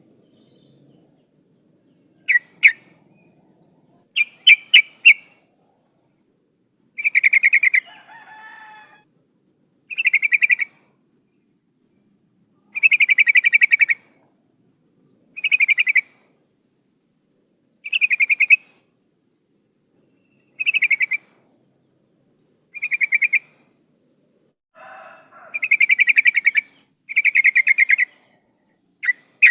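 Yellow-vented bulbul (trucukan) calling, said to be a female calling to males. It gives a few short sharp notes at first, then bubbly phrases about a second long, repeated every two to three seconds. Two fainter, lower calls come in between.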